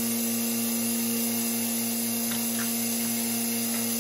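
Gast 0822 oilless rotary vane vacuum pump running with a loud, steady hum.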